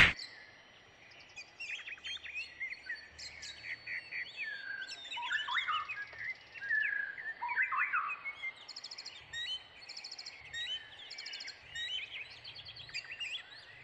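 Quiet outdoor ambience of birds singing: many short chirps and whistled sweeps from several birds, with quick high trills now and then.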